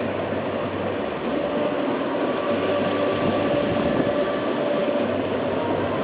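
Steady rushing noise of a sailing yacht under way, wind and water moving past the boat, with a faint steady hum running under it.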